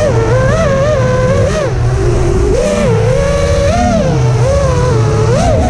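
FPV quadcopter's Xing 2207 2750kv brushless motors and Gemfan Hurricane props whining, heard from the onboard camera, the pitch rising and falling again and again with throttle changes. A low wind rush runs underneath.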